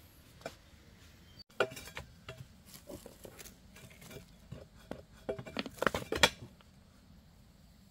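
Bamboo-handled digging tool scraping and striking soil and stones in a hole: an uneven run of short scrapes and clinks, loudest in a quick cluster near the end.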